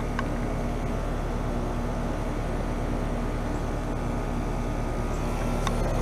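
Several Carrier Comfort heat pump outdoor units running in heat mode, a steady hum of compressors and fan motors, with one unit in a defrost cycle.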